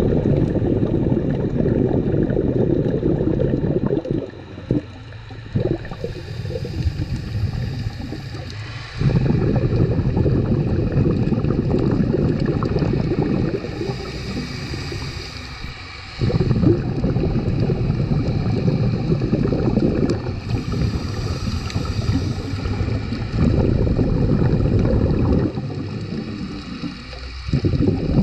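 Scuba diver breathing through a regulator underwater: a high hiss on each inhale, then a loud rumbling rush of exhaled bubbles, repeating about every seven seconds.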